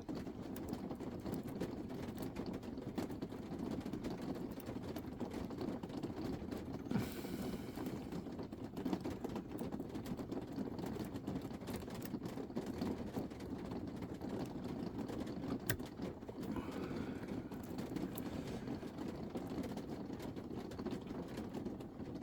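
Lock picking: small scattered clicks and scrapes of a pick and tension tool working inside a lock, over a steady low background hum.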